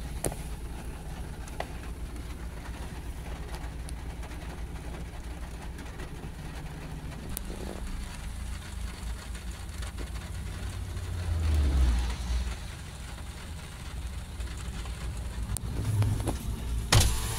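Car interior noise in the rain: a steady low engine and road rumble with a faint hiss of rain on the windscreen. A deeper rumble swells and fades about eleven seconds in, and a sharp knock comes near the end.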